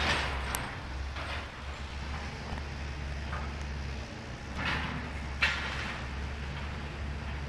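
House demolition with heavy machinery: a steady low engine drone with several clanks and crashes of debris, the sharpest about five and a half seconds in.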